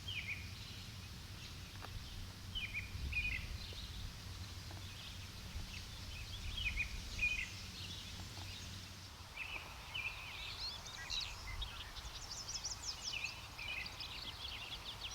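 Songbirds chirping and singing in the background: short chirps throughout, with a quicker run of high rising notes in the last few seconds, over a low steady rumble.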